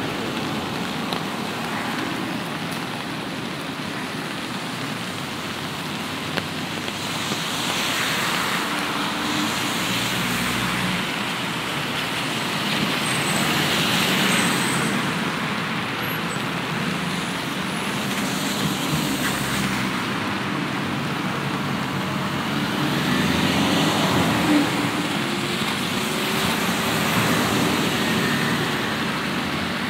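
Road traffic on a rain-wet city street: cars and trucks pass one after another, their tyres hissing on the wet road, swelling and fading several times over a low engine hum.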